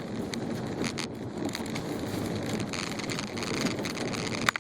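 Car driving through deep, unplowed snow, heard from inside the cabin: a steady rumble of engine and tyres with scattered sharp clicks. Near the end there is a sharp click, and then the sound drops quieter.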